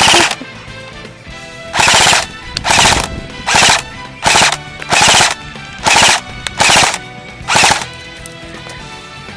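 Airsoft gun firing short full-auto bursts, one right at the start and then about eight more, roughly one every second, from about two seconds in until near eight seconds. Background music plays faintly underneath.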